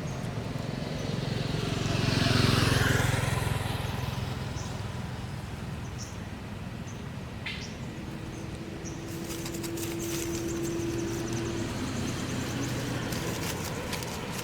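A road vehicle passing by, loudest about two and a half seconds in and fading away, over steady traffic noise. A steady hum runs from about eight seconds in to near twelve, and fine rapid clicks come in over the second half.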